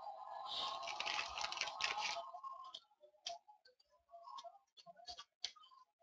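Trading cards and their packaging being handled: a crinkling rustle for about two seconds, then scattered light clicks and taps as cards are moved and set down.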